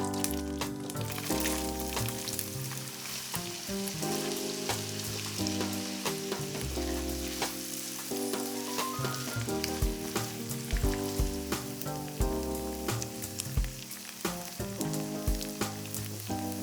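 Food sizzling steadily as it fries in oil in a pan, with occasional light clicks, over background music.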